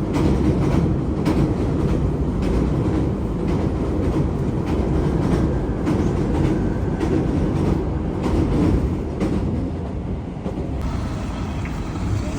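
Train running on rails: a steady low rumble with occasional clicks of the wheels over rail joints.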